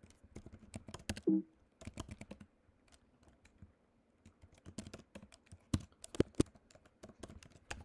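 Typing on a computer keyboard: irregular runs of key clicks with a short pause in the middle, as a vi command is entered and a line of code is edited. A brief low hum sounds about a second in.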